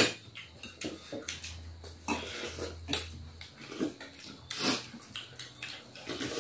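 Eating at a shared table: scattered clinks and clatters of spoons against steel bowls and plates, with a sharp clink right at the start, amid chewing and lip-smacking.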